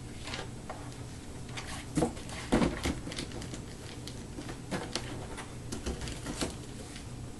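Laptop and packaging being handled: scattered light clicks and knocks, loudest about two seconds in, over a steady low hum.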